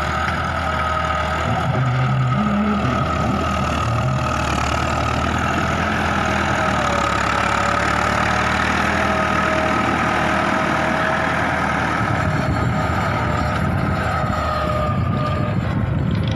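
Massey Ferguson 385 tractor's four-cylinder diesel engine running steadily under load while it pulls a rear rotary tiller through the soil, with a steady high whine over the engine note that fades out near the end.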